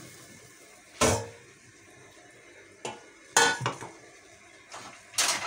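Metal cookware knocking and clanking: a ringing clank about a second in, another loud one past the middle, and lighter clinks near the end.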